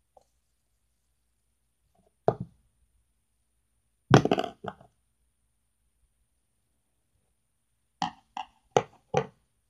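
Sharp knocks and taps on a small tabletop as Play-Doh and tools are handled and pressed down: one about two seconds in, a louder cluster of knocks about four seconds in, and four quick taps near the end.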